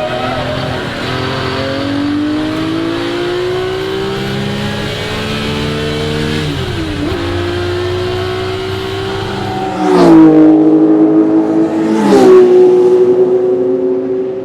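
1961 Ferrari 250 GT SWB's Colombo V12 engine accelerating hard, its note climbing steadily. It dips briefly about six seconds in as it shifts up, then climbs again. About ten seconds in it becomes suddenly much louder, with two short, sharp breaks in the note about two seconds apart.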